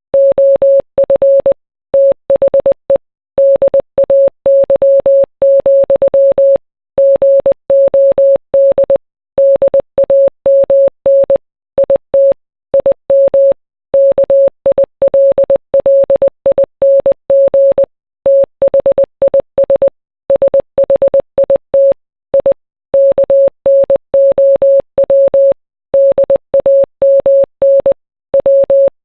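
Morse code: a single steady mid-pitched beep keyed on and off in short dots and longer dashes, with pauses between letters and words, spelling out song lyrics.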